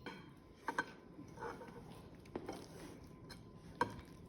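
A few light clicks and knocks of a spoon against a mixing bowl, with faint handling noise, as pizza-dough ingredients are measured and added.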